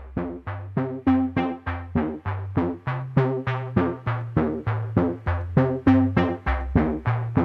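Background music: a quick, even run of short plucked synthesizer notes, about four a second, over a changing bass line.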